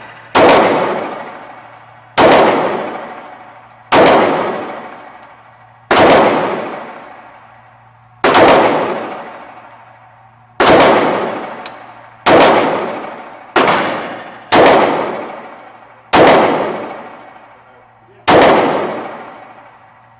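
Pistol fired in slow, deliberate single shots, about eleven of them, each followed by a long echoing decay.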